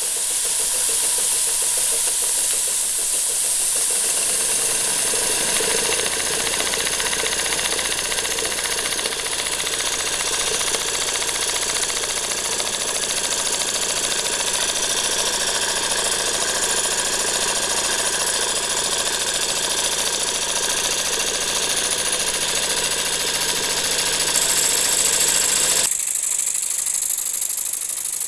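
Jensen 20 toy steam engine running steadily, driving small belt-driven Jensen 15 generators: a continuous mechanical whir and clatter with a high hiss. About 26 s in, the lower part of the sound drops away abruptly and the hiss carries on.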